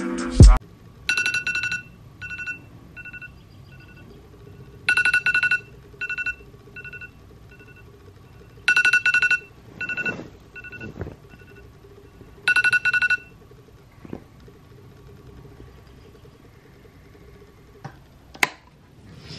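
Electronic alarm tone beeping in a repeating pattern. Four times, about every four seconds, comes a rapid burst of beeps on two pitches, with fainter single beeps in between. A sharp click comes near the end.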